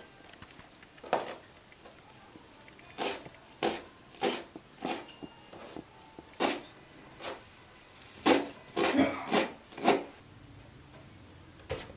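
Kitchen knife chopping a pile of fresh herbs and leafy greens (spinach, leek, coriander, cress, mint) on a plastic cutting board: irregular single chops, then a quicker run of strokes about eight seconds in.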